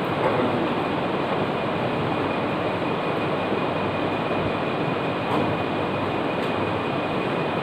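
Steady rushing background noise with a faint high-pitched whine running through it, with no distinct events.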